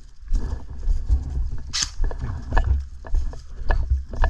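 Footsteps of a player walking quickly on rough ground, heard as heavy thuds about twice a second. There is a short hiss about two seconds in, and a few sharp clicks near the end.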